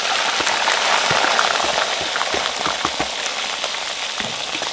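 Whole crickets dropped into hot oil in a wok, sizzling hard with crackles and pops as they fry. The sizzle is strongest just after they go in and eases a little toward the end.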